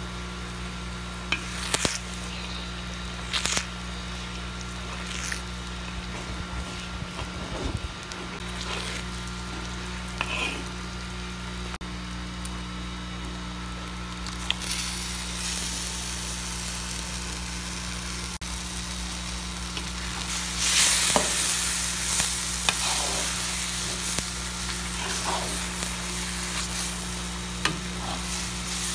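Beaten eggs sizzling in hot oil in a wok, with sharp clicks and scrapes of a slotted spatula against the pan. From about halfway, chopped tomatoes go in and the sizzle grows louder, loudest about two-thirds through as they are stirred with the egg, over a steady low hum.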